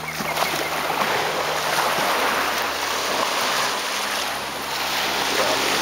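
A 24-volt electric trolling motor running on the power of two 90 W solar panels, its propeller spinning in the air: a faint steady low hum under a constant rushing noise.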